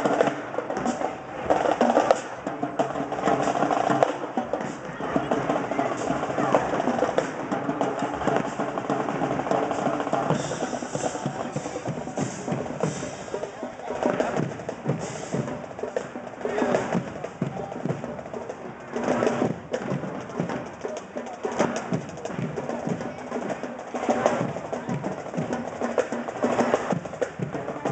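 High school marching band playing: horns and drums together at first, then from about ten seconds in mostly the drum line's snare and bass drums beating a cadence.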